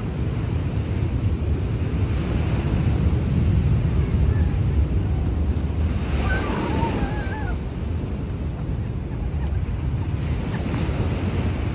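Ocean surf washing onto the shore, a steady rush that swells and eases, with wind buffeting the microphone. A brief high voice rises and falls about six seconds in.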